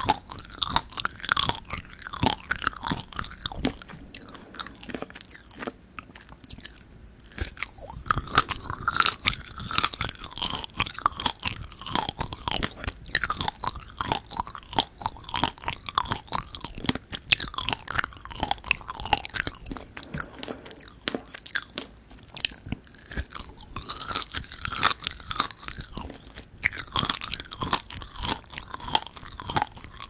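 Close-miked chewing of dried fig: sticky, squishy mouth sounds dotted with small crunches of the fig's seeds. Another bite is taken from the fig in the second half.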